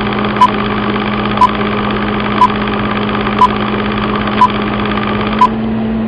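Film-leader countdown sound effect: a steady projector-like whirr and hum with a short, high beep once a second, one beep per number of the countdown. Near the end the whirr drops away and only the hum is left.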